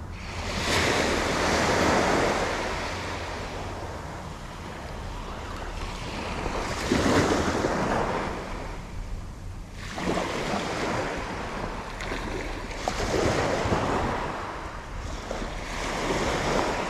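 Small waves breaking and washing up a sandy beach, swelling and fading every few seconds, with a steady low rumble of wind on the microphone.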